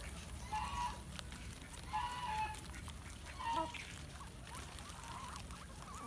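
Guinea pigs giving short, pitched squealing calls while feeding, four in all, the last one fainter.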